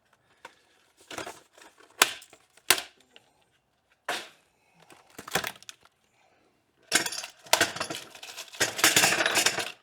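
Packaging of a new wire wheel being handled and torn open: several separate sharp clicks and snaps, then about two and a half seconds of crinkling and tearing near the end.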